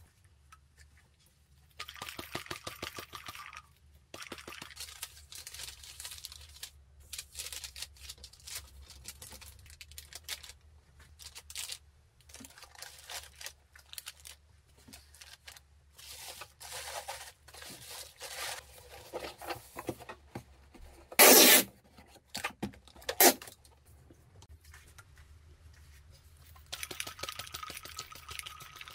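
Cardboard box, bubble wrap and paper rustling and crinkling as an order is packed by hand, with two loud short rips about two seconds apart late on. Near the end, a sticky lint roller rolling over a fabric pouch makes a steady rustle.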